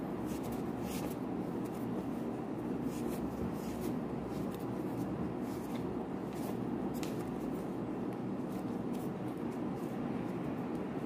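A steady low hum runs underneath faint, irregular soft taps and scuffs of hands kneading yeast dough on a floured countertop.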